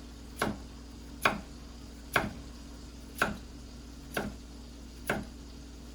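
Crinkle-cut knife pressed down through peeled potatoes, slicing them: six chops about a second apart.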